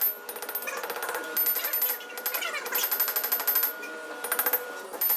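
Hammer striking red-hot steel on an anvil in several quick bursts of blows, with a high metallic ring from the anvil.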